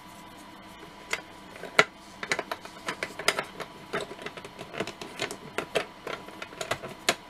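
Hard plastic model-kit parts clicking and tapping against a plastic base as they are handled and test-fitted: irregular sharp clicks starting about a second in, the loudest just before two seconds.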